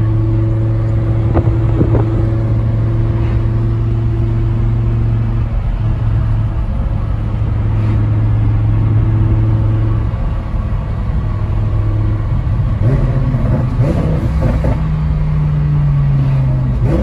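Twin-turbocharged Lamborghini Huracán V10 engine and exhaust heard from inside the cabin while driving: a steady low drone that eases off briefly twice, with a higher engine note in the last few seconds.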